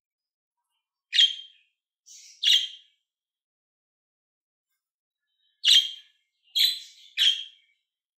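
Budgerigar giving short, sharp chirps. There is one about a second in and a pair a second later, then a pause of about three seconds, then three more in quick succession near the end.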